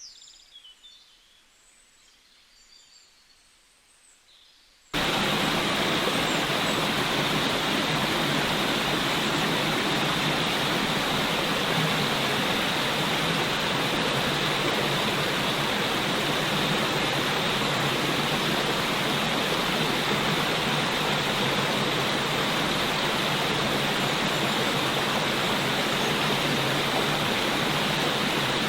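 Faint, scattered birdsong that about five seconds in is cut off abruptly by a loud, perfectly steady rushing noise, like a waterfall, with no rhythm or pitch.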